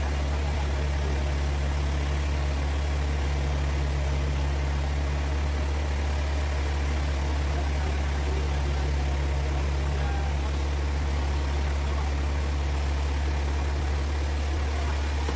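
Sawmill engine running steadily at idle, a deep, even hum with no cutting heard.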